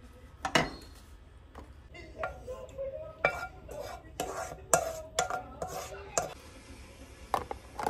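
A wooden spatula scraping and knocking against a non-stick frying pan as food is stirred and scraped out of it, in a series of irregular knocks and scrapes, some with a brief metallic ring from the pan.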